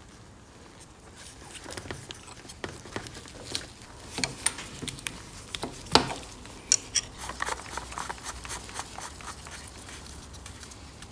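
Light clicks, taps and scrapes of small metal parts as a motorcycle carburettor is handled and fitted with gloved hands, with one sharper knock about six seconds in.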